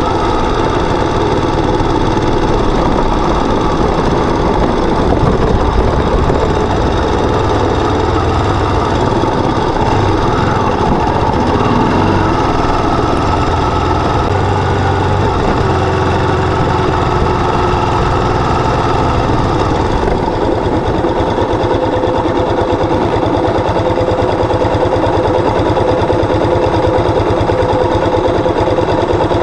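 Motorcycle engine running steadily for the whole stretch, its pitch shifting a little as the throttle changes, with a change in the sound about twenty seconds in.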